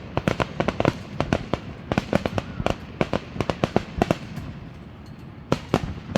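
Fireworks going off: a rapid, irregular run of sharp bangs and pops for the first four seconds or so, thinning out, then two more bangs near the end.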